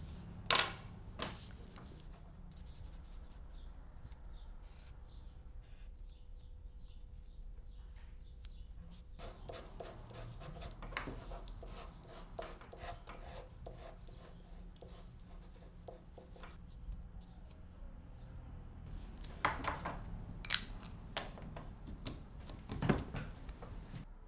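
Pencil scratching on paper in quick, repeated strokes of drawing and writing, with a few louder bursts of strokes near the start and towards the end.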